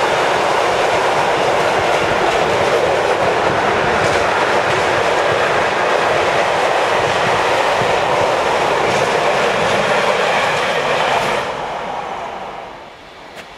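Long freight train passing at speed, its wagons running steadily over the rails; the sound fades away about eleven seconds in as the tail of the train goes by.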